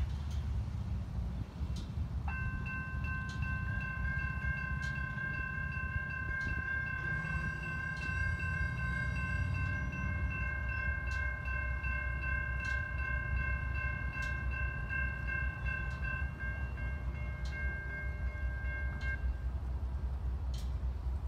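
Approaching freight locomotive's multi-chime air horn sounding one long, steady chord of about seventeen seconds, starting about two seconds in, over a constant low rumble.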